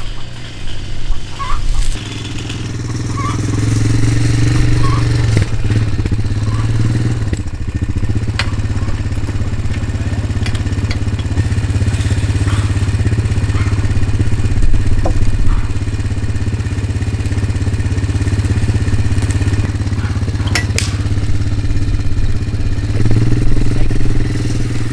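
ATV engine running steadily at idle, its level rising over the first few seconds, with a few sharp clicks and knocks over it.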